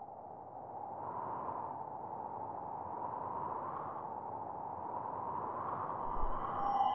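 Steady rushing noise with no clear pitch, fading in over the first second or so.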